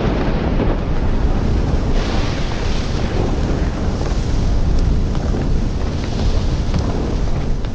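Steady deep rumbling with rushing, wind-like noise over it, and a few faint cracks.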